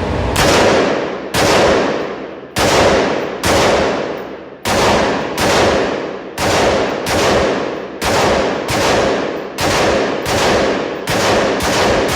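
Firearm shots fired one after another in a steady string, about seventeen reports spaced roughly half a second to a second apart, each sharp crack trailing off in a long echo.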